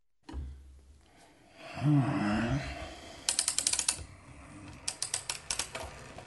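Mechanical sound effects: a low hum sets in, a wavering low tone swells about two seconds in, then two quick runs of rapid ratchet-like clicking follow.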